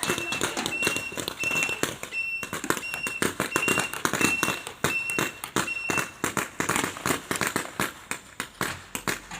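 Airsoft guns firing: many sharp snapping shots in quick, irregular succession, thinning out near the end. Over the first six seconds a short high beep repeats about every 0.7 s.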